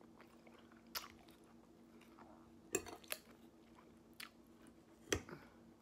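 A person chewing a mouthful of salad with the mouth closed: a handful of short, sharp mouth clicks and crunches spread over several seconds, over a faint steady hum.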